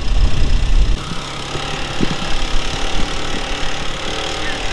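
ATV engine running at a steady pace while riding, with a heavy low rumble for the first second, then an even engine drone with a few short knocks from the sled and trail.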